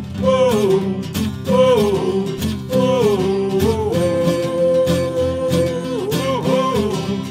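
Two acoustic guitars strummed together under a man's wordless sung notes that slide downward, one of them held for about two seconds near the middle.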